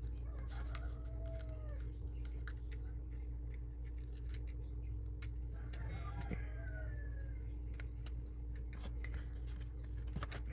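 Small clicks and taps of handling and fitting small model-kit parts, over a steady low electrical hum.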